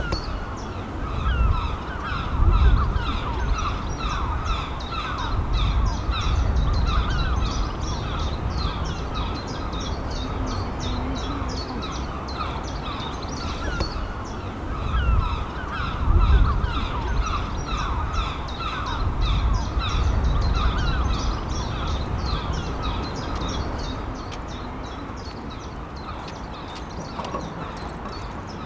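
A large flock of birds calling, many short calls overlapping without a break, over a steady low rumble.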